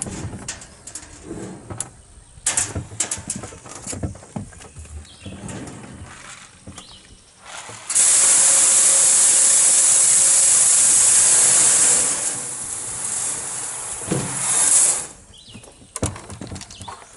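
Shelled corn being poured from a tub into a feeder: knocks and clatter of handling the tub, then about eight seconds in a sudden loud rushing hiss of pouring grain for about four seconds, which thins and tails off over the next three.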